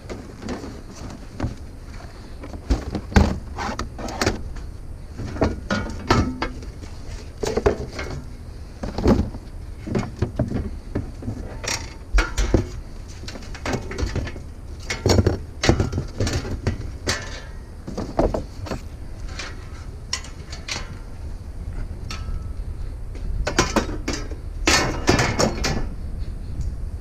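Loose scrap metal in a pickup and trailer knocking and rattling irregularly over the steady rumble of the moving truck, with heavier clusters of clanks now and then.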